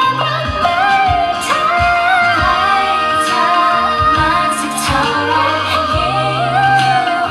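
T-pop song played live over a hall PA: a female voice singing a melody over synth bass and a steady drum beat.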